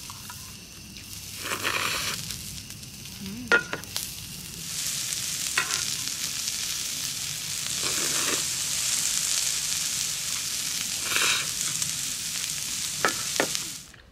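Noodles being slurped from a stainless steel sierra cup in a few long slurps, with chopsticks clicking against the metal cup now and then. A steady sizzle-like hiss runs under them from about five seconds in and cuts off just before the end.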